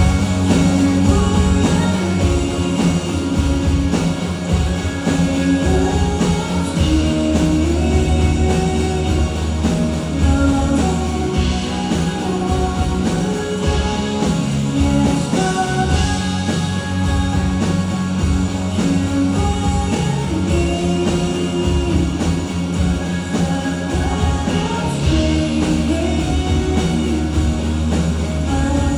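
A male singer singing a pop-rock song live with a full band, guitar included.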